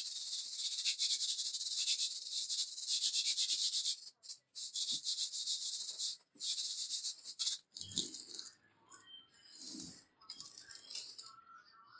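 Rapid, rasping strokes of hand abrasive work on an old rusty saw, heard as a dense hiss. About four seconds in the strokes break into shorter spells, with a few dull knocks later on.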